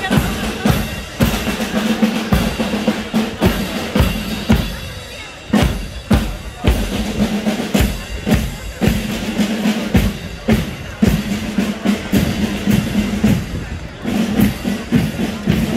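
Parade marching band drums beating a steady march, about two beats a second, with bass drum and snare, over crowd chatter.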